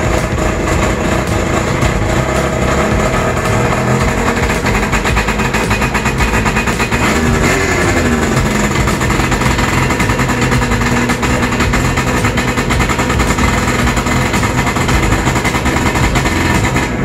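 A 2002 Arctic Cat ZR 600 EFI snowmobile's two-stroke twin engine runs loud and steady on its first start after a rebuild. Its pitch swings down and back up once about eight seconds in, and the engine cuts off right at the end.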